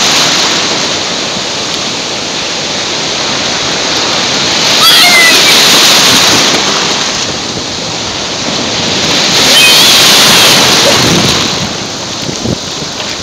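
Ocean surf breaking and rushing around the microphone in a steady wash, swelling twice as waves come through. A brief high, wavering cry rides over each swell.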